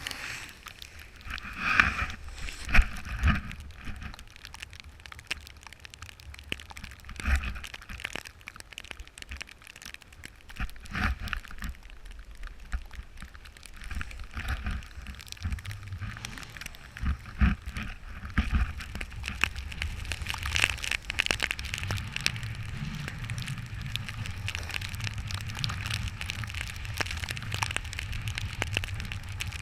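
Snowboard sliding and carving over snow: an uneven, crackling scrape with louder scrapes about two and three seconds in and again around seventeen seconds. A low rumble joins in over the second half.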